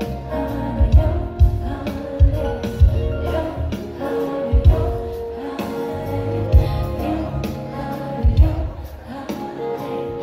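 Live band music with singing from a concert PA, recorded on a phone's microphone in the hall. Sustained chords run over a deep, irregular kick drum.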